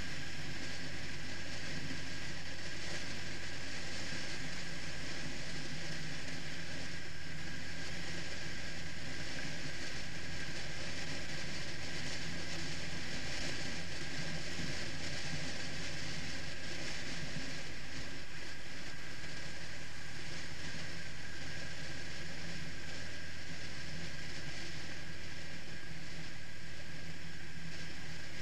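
Motorcycle engine running steadily at cruising speed, with wind and road noise rushing over the bike-mounted microphone.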